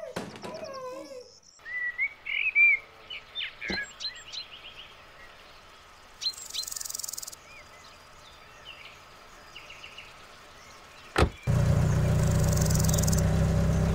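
A child's crying dies away in the first second, then birds chirp and call outdoors, broken by two sharp thumps. About eleven and a half seconds in, an old Peugeot 404 sedan's engine starts running, loud and steady.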